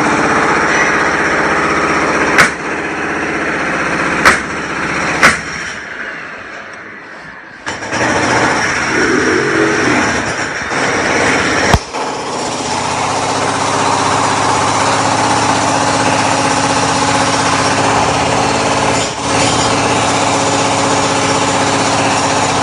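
Construction-site machinery engine running steadily, with four sharp bangs: three in the first five seconds and one about halfway through. The noise falls away for a moment about six seconds in and picks up again about two seconds later.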